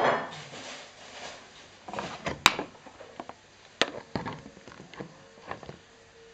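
A door's lever handle and latch clicking and knocking as a cat works the handle to open the door: a string of sharp clicks, the loudest about two and a half seconds in, after a short rush of noise at the very start.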